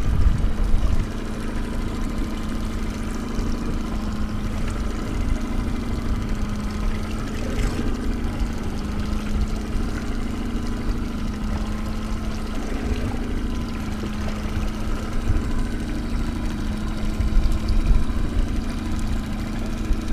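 Boat motor running steadily at trolling speed, a constant hum. A heavier low rumble drops away about a second in.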